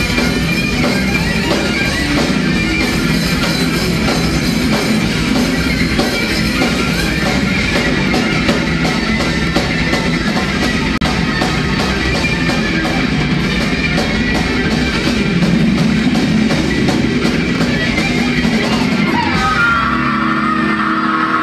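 Live rock band playing loud: electric guitars, bass guitar and drum kit. About 19 seconds in the drums and cymbals stop and the guitars ring on with held notes.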